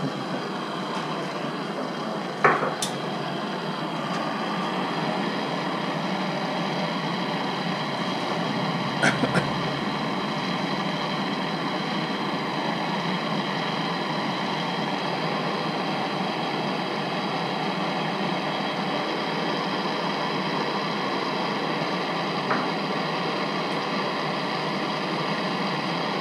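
Handheld gas torch burning with a steady hiss of flame while it heats copper pipe fittings for soldering. A few sharp knocks cut in: a loud one a couple of seconds in, a quick pair about nine seconds in, and a faint one near the end.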